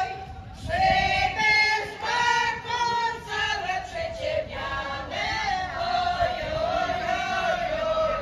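A group of men and women singing a song together in a choir, holding notes in a flowing melody.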